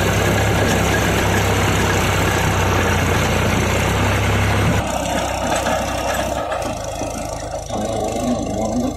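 New Holland 3600-2 tractor's diesel engine running steadily under load while driving a rotavator: its throttle is set at 1700 RPM and the load pulls it down to about 1500. Its sound differs from a stock 3600-2 because of modifications. The level drops suddenly about five seconds in, and the engine is then heard from farther off.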